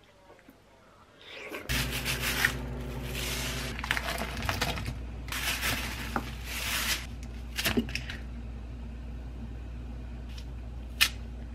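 Plastic rustling from a disposable glove and a plastic bag as frozen pork slices and fried tofu pieces are put into a pot of soup, with a couple of light knocks. Under it, from about two seconds in, a steady low electrical hum from the cooktop.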